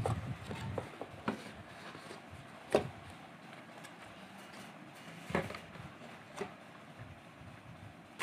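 Paper being handled and moved by hand: a few scattered soft knocks and rustles over quiet room tone.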